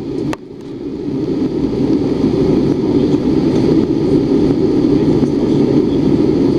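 Steady cabin noise of an Airbus A320-family airliner in cruise-climb flight, heard from a window seat over the wing: a low, even rush of engines and airflow. A short click comes near the start, after which the noise dips and then swells back over a couple of seconds.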